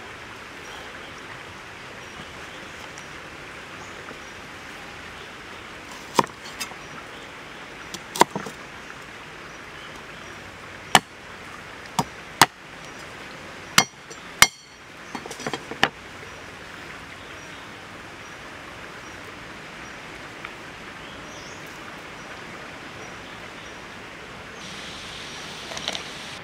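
A cleaver chopping garlic cloves on a wooden chopping board: about nine sharp, separate knocks spread unevenly over some ten seconds, over the steady rush of flowing water.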